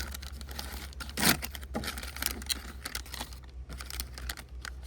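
Rustling and clicking of the headlight restoration kit's packaging and contents being handled: many small clicks and crinkles, with one louder knock about a second in.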